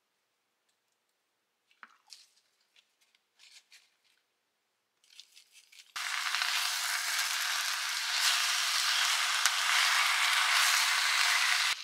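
Food frying in hot oil: a loud, steady sizzle that starts suddenly about six seconds in, after a few light clicks and rustles.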